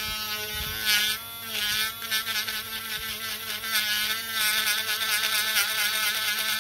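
Mini 12 V rotary engraving tool whining at high speed, its pitch wavering and dipping under load as a tungsten carbide burr cuts a deep groove into a block of wood. Gritty bursts of cutting noise come about a second in, again near two seconds, and almost continuously from about the middle on.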